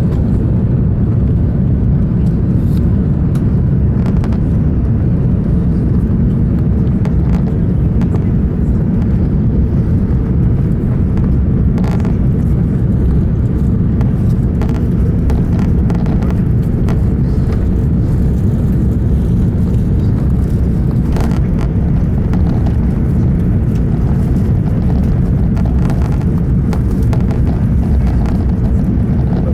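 Cabin noise inside an Airbus A380 during takeoff, heard from the upper deck: a loud, steady low rumble of the four Rolls-Royce Trent 900 engines and the airflow, with a faint steady hum. A few short knocks and rattles come through the cabin now and then.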